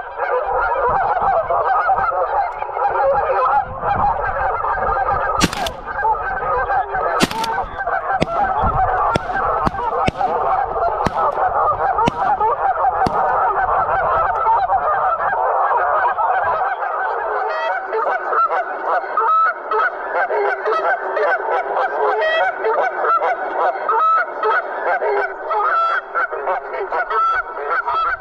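A large flock of Canada geese honking continuously, many calls overlapping into one dense chorus. A couple of sharp clicks sound about five and seven seconds in.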